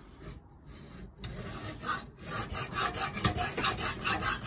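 Fine-grit stone on an Eze Sharp guided rod sharpener being stroked by hand along a steel knife edge, working from heel to point: a quick series of rasping strokes, several a second, starting about a second in.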